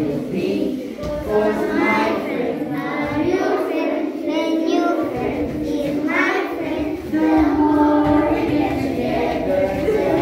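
A group of children singing a song.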